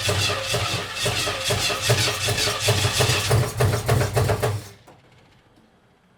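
1959 Pontiac Catalina V8 being cranked over by its starter, chugging in an even rhythm without catching, then stopping abruptly. The engine is not yet getting enough fuel to fire.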